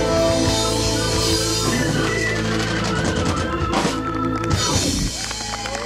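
Live rock band with electric and acoustic guitars, keyboard and drum kit playing the last bars of a song, ending on a held chord that stops about five seconds in. Whoops from the audience start just as it ends.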